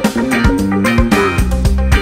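Background music with guitar, bass and drums over a steady beat.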